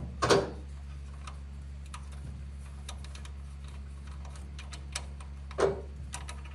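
Small metal clicks and taps of a 12mm wrench working the air-assist fitting loose on a CO2 laser's head, irregular, with two louder knocks, one just after the start and one near the end. A steady low hum runs underneath.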